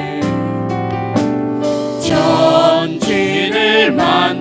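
Praise team singing a Korean worship song in several voices, with drums and band accompaniment. A held note gives way to the next sung line about two seconds in.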